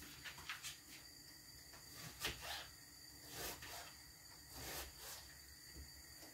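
Faint knife cuts on a cutting board as an onion is cut up: a few soft, irregular taps.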